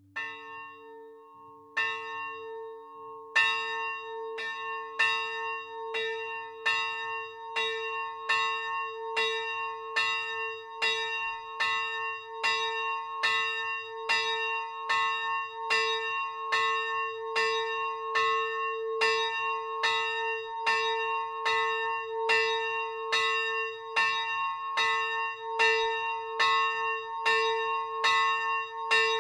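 The small church bell "Imrich" (note B", 60 kg, cast by the Dytrych family of Brodek u Přerova, 1983) swinging up and ringing. Its first two strokes come about a second and a half apart, then steady strokes about every 0.8 s, each one ringing on into the next.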